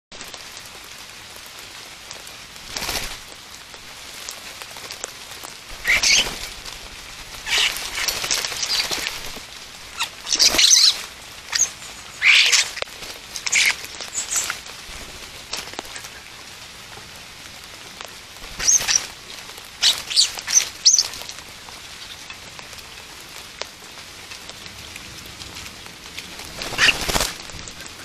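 Steady rain falling, with common starlings giving short bursts of calls, about a dozen of them scattered irregularly through, louder than the rain.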